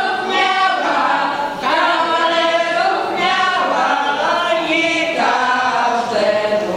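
A women's folk ensemble singing a cappella in unison and harmony, several voices together in long held phrases with brief pauses between lines.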